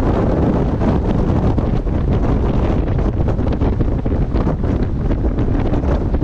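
Strong wind buffeting the microphone: a loud, continuous, deep rumble that flutters unevenly.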